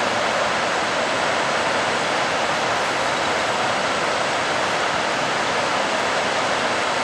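Floodwater of a creek in major flood rushing through the arches of a railway bridge: a steady, unbroken rush of water.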